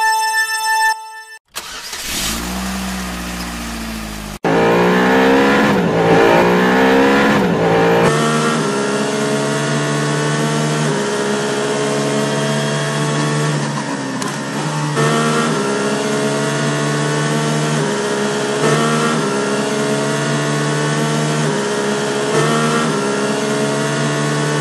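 Formula One-style racing car engine sound effect: a low rumble, then revving in rising sweeps, then a steady high-speed drone whose pitch drops and climbs again several times.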